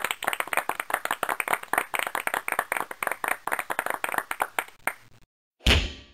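A fast, even run of sharp claps lasting about five seconds, then a single heavy thump near the end.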